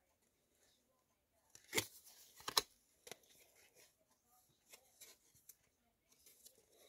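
Stiff trading cards being peeled apart by hand, sticking together: two sharp snaps of card a couple of seconds in, then a few faint taps.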